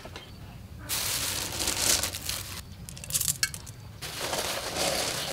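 Lumps of rock sugar rattling and clinking against a glass jar of plums, in two long bursts with a few sharp clicks between them.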